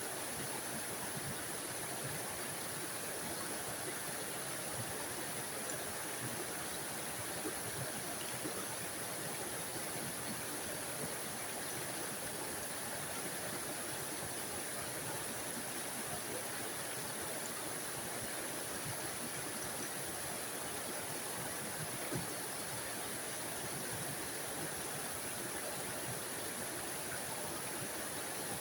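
A tiny forest waterfall splashing and rushing steadily, an even hiss of falling water with occasional small splashes.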